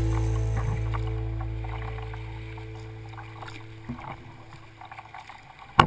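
A held chord of background music fades away over the first few seconds. It leaves water lapping and small paddle splashes around a sea kayak, and a single sharp knock comes near the end.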